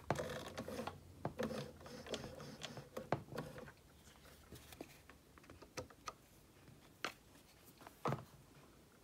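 Bernina 930 sewing machine's needle bar and rotary hook being turned over slowly by hand at the handwheel, with the bobbin area open. A quick run of soft clicks and rattles comes in the first few seconds, then scattered single clicks, two of them louder near the end.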